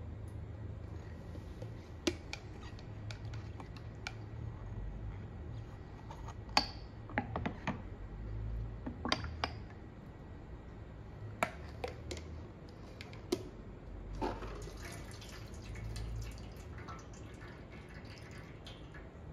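Ceramic cups of soaked soybeans clinking and knocking against the natto maker's tray as they are lifted out and set back, a dozen or so scattered clinks, with some water trickling as the excess soaking water is drained off.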